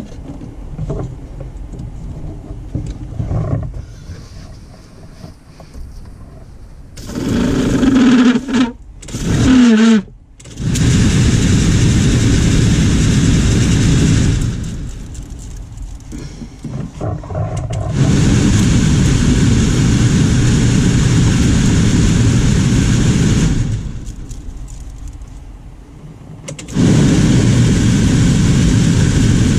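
Jeep TJ heater blower motor and squirrel-cage fan switched on and off several times, each time a loud steady whirr of moving air. Near the start it spins up with a rising tone. It runs without its ticking once the leaves and debris are cleared from the housing.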